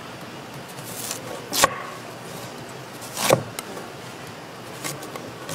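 Chef's knife chopping through a large white Korean radish onto a wooden cutting board: separate sharp knocks about a second and a half apart.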